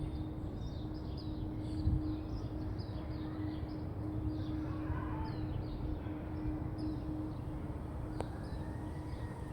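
A steady low hum from an unseen source, one held tone over a low rumble, while small birds chirp again and again. Near the end a faint wailing tone rises and then slowly falls.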